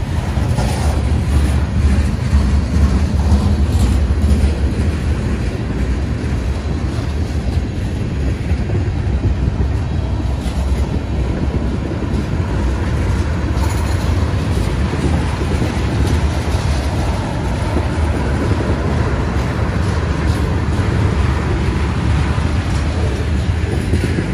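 Freight train rolling by: a steady low rumble of rail cars on the track, with a few scattered clicks.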